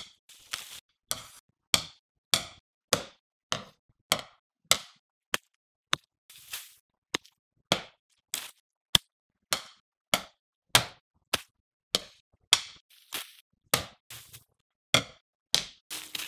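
A steady run of drumstick strikes, a sharp knock about every half second or so, each with a short decay and a few a little longer and noisier. These are machine-predicted impact sounds generated to match video of a wooden drumstick hitting different surfaces: metal chair frames, hard ground and a puddle.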